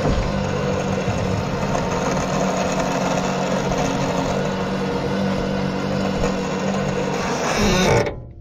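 A motor-driven winch runs steadily, dragging a steel excavator thumb up the trailer deck on a chain. It cuts off abruptly near the end, when the load is catching.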